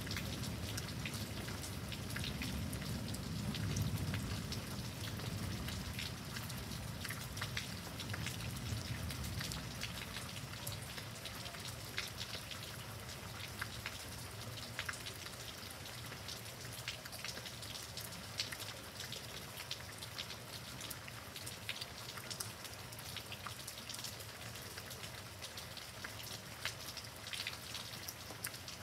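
Steady heavy rain during a severe thunderstorm, with many sharp drop ticks close by. A low rumble of thunder dies away over the first several seconds.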